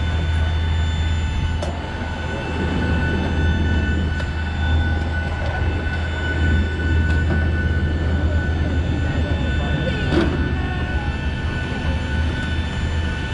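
Jet airliner's auxiliary power unit running on the apron: a steady low hum with a high whine over it. A few short knocks are heard, the plainest about ten seconds in.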